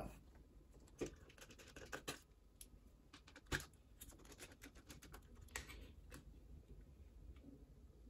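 Faint, scattered clicks and scratches of a screwdriver turning small screws out of a laptop's hard-drive bracket, the sharpest click about three and a half seconds in.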